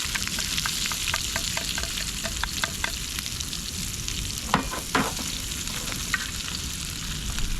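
Onions sizzling as they fry in a pan, with quick crackles of spatter through the first few seconds and two louder knocks a little past the middle.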